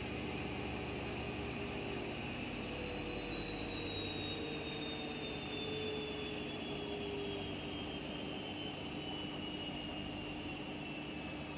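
Washing machine spinning, its motor whine slowly falling in pitch over a steady rushing hum as the drum slows down.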